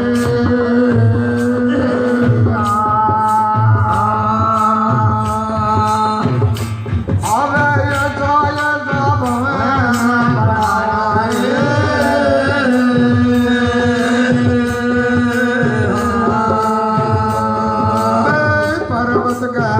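Devotional folk bhajan music: a held, sustained melody over a steady drum beat with sharp strikes about twice a second.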